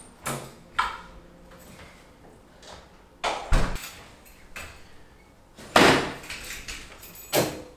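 Footsteps on a tiled floor and several separate knocks and thuds. The loudest is a sports holdall dropped onto the floor about six seconds in.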